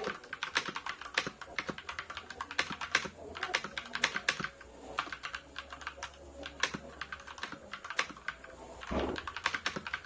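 Typing on a budget Rakk mechanical keyboard with a plastic case and plastic plate: a fast run of key clacks with a few short pauses, and a low thump about nine seconds in.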